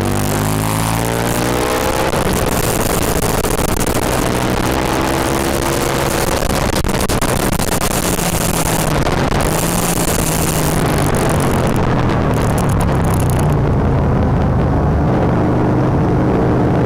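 Aprilia Tuono's 60-degree V-twin engine under hard riding on a race track. Its pitch climbs and drops repeatedly as the bike accelerates, shifts gear and slows, over a steady rush of wind noise.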